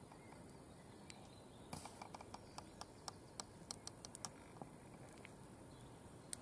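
Newly lit fire of small twigs crackling faintly: quick, irregular snaps and pops, thickest through the middle.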